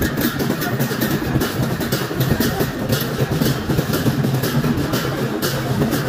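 Dense crowd din with large brass hand cymbals clashing repeatedly, about two or three strokes a second, over the beat of a barrel drum in a festival procession.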